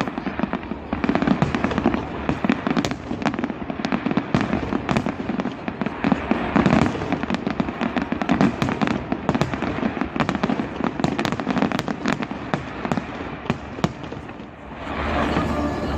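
Fireworks display: a rapid, unbroken string of bangs and crackles from aerial shells going off.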